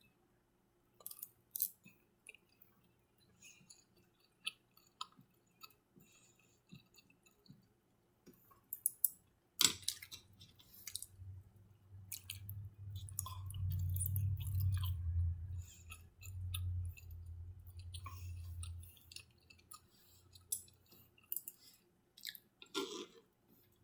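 Close-miked chewing of a Chinese takeout meal of lo mein noodles and orange chicken, with scattered wet mouth clicks and smacks. About ten seconds in, a low rumble begins and runs for about nine seconds; it is the loudest part.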